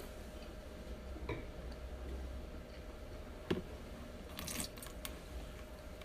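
A wine glass is set down on a wooden table with a single small knock about three and a half seconds in. A second later comes a brief hissing spurt as the taster spits out the wine, then a light click.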